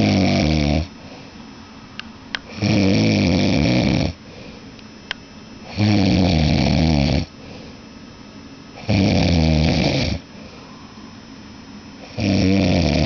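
A man snoring loudly in deep sleep: five long, rasping snores, each lasting about a second or more and coming roughly every three seconds, with quiet breathing between them. A few faint clicks fall between the second and third snores.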